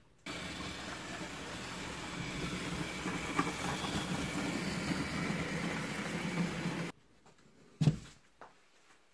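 An H0-scale model freight train running past close by, its wheels rolling over the track; the sound starts and stops abruptly. About a second after it stops, one sharp click, then a few faint ticks.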